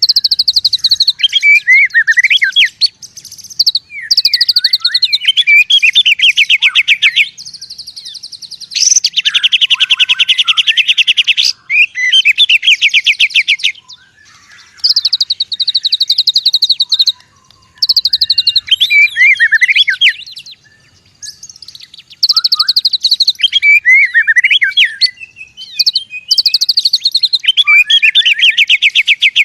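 White-rumped shama (murai batu) singing in aggressive fighting mode: repeated loud phrases of fast buzzing rattles, mixed with warbled whistled notes, each phrase two to three seconds long with short pauses between.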